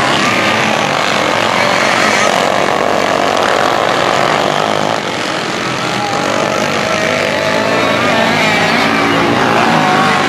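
A pack of dirt-track racing kart engines running hard, several overlapping pitches rising and falling as the karts go through the turn. The level dips briefly about halfway.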